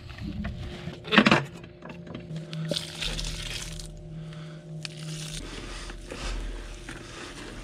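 Gloved hands squelching and kneading a wet chum of blended chicken liver, oats and grits in a plastic bucket, with corn kernels poured in partway through. A sharp knock comes about a second in.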